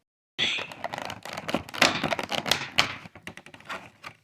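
Cardboard vinyl-figure box and its plastic insert being opened and handled: a busy, irregular run of clicks, crackles and rustles that starts abruptly.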